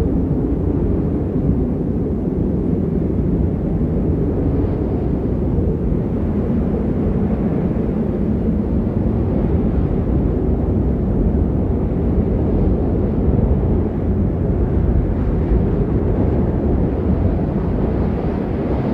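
Steady low rushing and rumbling wind of a snowstorm sound effect, with faint shifting tones underneath and no breaks.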